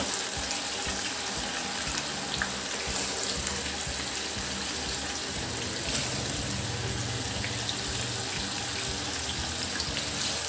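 Whole masoor dal (brown lentils) freshly added to hot oil in a kadai, deep-frying with a steady, vigorous sizzle and bubbling of the oil.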